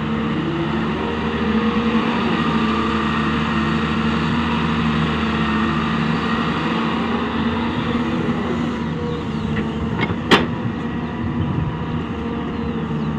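Volvo EW130 wheeled excavator's diesel engine running steadily under hydraulic load while it digs and swings the boom. A single sharp knock comes late on and is the loudest sound.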